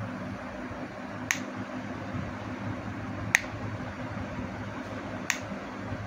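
Rocker switch on a cable-reel extension socket clicking three times, about two seconds apart, as it is switched on and off, over a steady low hum and hiss.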